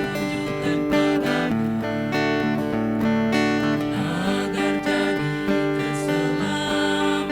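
Acoustic guitar strummed steadily, playing a hymn tune.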